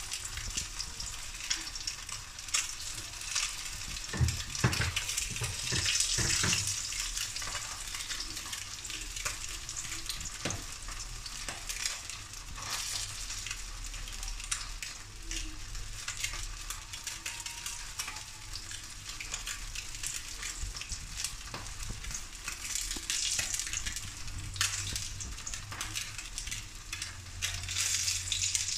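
Threadfin fish fillet frying in shallow oil in a wok: a steady sizzle with constant crackling pops of spitting oil, a few louder pops about four to six seconds in.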